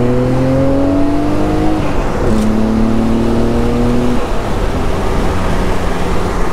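Car engine accelerating under throttle, its note climbing steadily, with a short break about two seconds in like a gear change. It pulls again in the next gear, then eases off about four seconds in, leaving steady engine and road noise.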